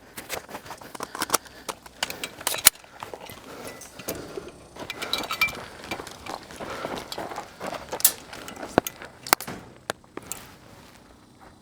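Airsoft players moving and firing: scattered sharp snaps and clicks over rustling and footsteps. The sharpest cracks come a little under three seconds in and again around eight and nine seconds.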